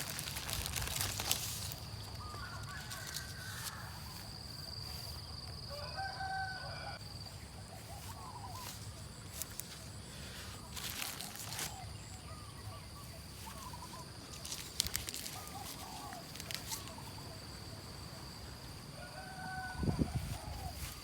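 Short bird calls, scattered through, with a longer call about six seconds in and another near the end, over a steady high-pitched tone and a few sharp clicks.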